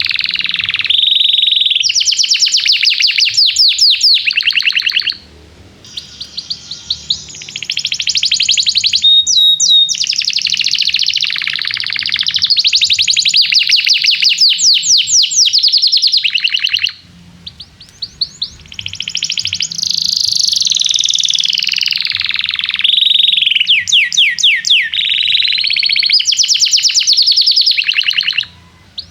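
Domestic canary singing a long, loud song of fast trills, made of rapid repeated notes. The song breaks off briefly about five seconds in and again about seventeen seconds in.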